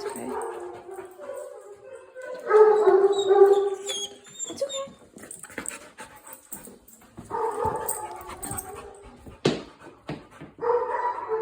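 A dog whining in long, pitched, drawn-out whines, three of them with pauses between. There is one sharp click about nine and a half seconds in.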